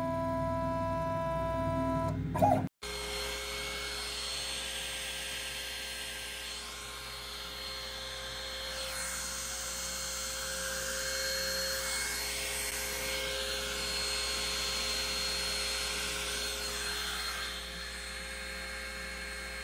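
Stepper motor driving the lead-screw axis of a CNC router, a steady whine with a click near the end. Then, after an abrupt break, the router spindle and dust-collection vacuum run together in a steady whir, with faint rising and falling tones as the axes move.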